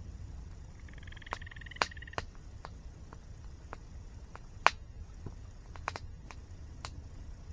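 Campfire crackling: irregular sharp pops of burning wood, the loudest about halfway through, over a low steady rumble. A short trilling call sounds from about one to two seconds in.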